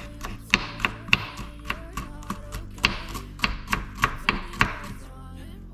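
Kitchen knife chopping on a wooden cutting board: quick, uneven knocks of the blade striking the board, about three a second, easing off near the end.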